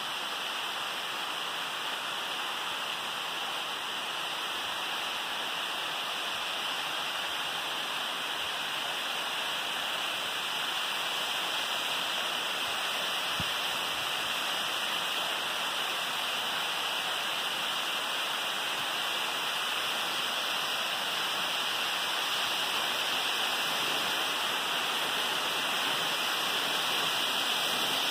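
Waterfall pouring down a rock face: a steady rush of falling, splashing water that grows gradually louder toward the end.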